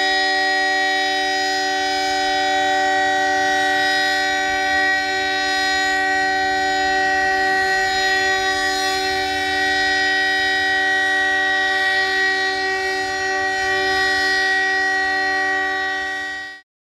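Emergency alert alarm tone: a loud, steady chord of several tones held unchanged for about sixteen seconds, fading and cutting off just before the end.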